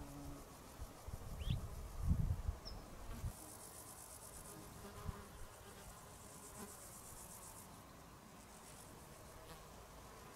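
Insects trilling high-pitched in bursts of a second or two, a fast even pulsing that comes and goes. Low wind rumble on the microphone in the first three seconds is the loudest part.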